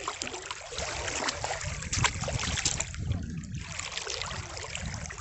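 Sea water splashing and sloshing close by, over a low rumble, with many small sharp splashes; the loudest comes about two seconds in.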